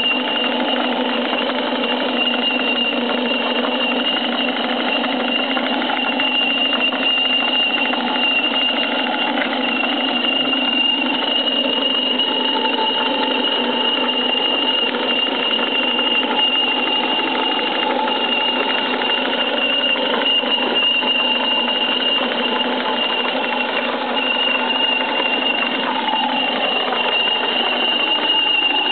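A 1-inch scale Burrell live-steam model traction engine working under load as it hauls a rider on a wheeled trolley, running steadily, mixed with the sound of the trolley's small wheels rolling on tarmac.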